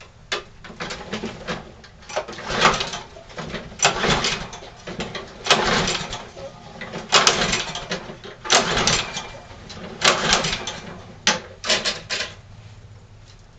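Recoil starter cord of a walk-behind lawn mower's Briggs & Stratton engine being pulled over and over, about one pull every second and a half, as the engine cranks without catching: a cold start attempt in freezing weather.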